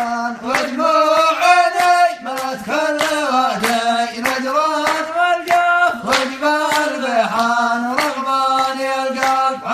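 Men singing an Arabic song without instruments, holding long, wavering notes.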